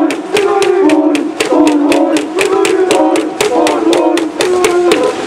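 Cheering section of a crowd chanting a cheer in unison in short repeated phrases, over a fast even beat of sharp claps, about five a second.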